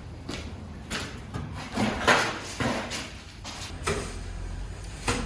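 Handling noise from building repair work: a series of scrapes and knocks, the loudest about two seconds in.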